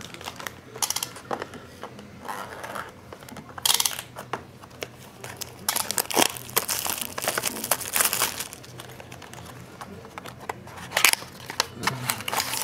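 Plastic wrapping on a sealed box of trading cards crinkling and tearing as it is ripped open by hand, in irregular crackling bursts with a few sharp rips.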